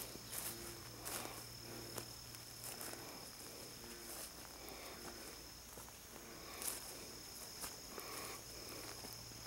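Footsteps walking across dry grass, a little more than one step a second, over a steady high drone of insects.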